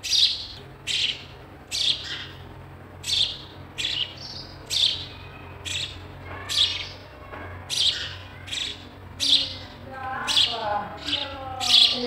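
Sparrow giving a steady series of short, sharp chirps, a little more than one a second, each falling in pitch.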